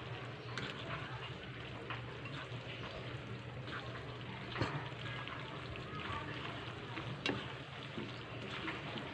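Cooked pasta being tossed and mixed by hand with a creamy sauce in a bowl: soft, wet squishing with scattered light clicks.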